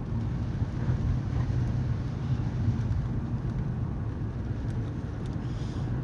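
Steady low road and engine rumble of a moving car, heard inside the cabin.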